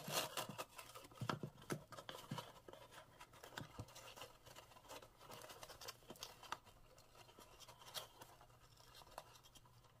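Hands handling a cardstock box while threading and tying a striped ribbon: faint, irregular paper rustles, scratches and light taps.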